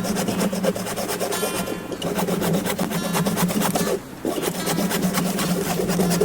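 A rapid rasping scrape of many fine strokes, with a short break about four seconds in.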